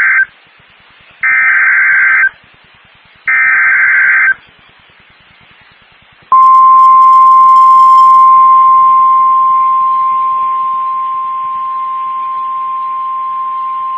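Emergency Alert System SAME header: the end of one and then two more harsh, one-second bursts of digital data tones, spaced about a second apart. About two seconds after the last burst, the NOAA Weather Radio warning alarm begins: a single steady high tone that holds, signalling that a warning message follows.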